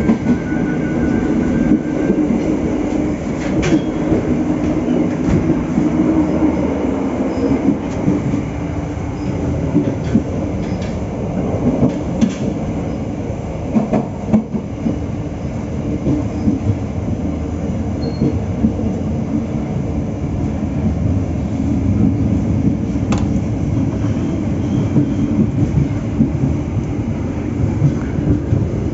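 Passenger train coach running along the track, heard at the vestibule door: a steady rumble of wheels on rails with a few sharp clicks over rail joints.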